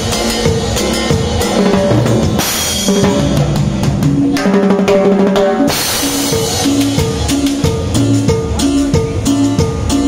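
A drum kit played with sticks, bass drum and snare, along with band music with a bass line and other pitched instruments. There are two cymbal crashes, about two and a half seconds in and again about six seconds in.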